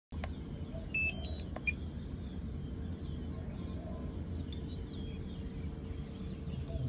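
Outdoor ambience of a steady low rumble with faint birds chirping; about a second in, a short run of electronic beeps stepping up in pitch, followed by a sharp click.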